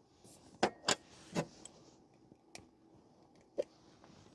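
Clicks and knocks of a portable espresso machine's parts being handled and taken apart, about five separate sharp taps spread over a few seconds.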